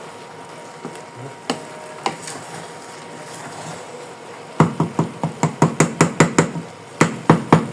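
A quick run of sharp knocks, about four a second, starting a little past halfway; before it there are only a couple of faint clicks.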